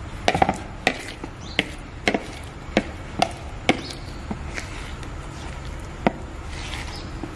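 Wire whisk knocking and scraping against a plastic mixing bowl while stirring paneer cubes into thick batter: a run of irregular sharp taps that thin out after about four seconds.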